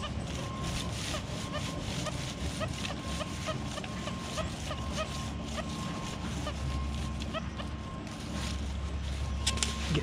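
XP Deus metal detector with a high-frequency coil giving a steady tone broken by short gaps, with many short chirps, as the coil is swept over a deep target that is hard to pinpoint. Dry leaf litter rustles and crunches under the coil and boots.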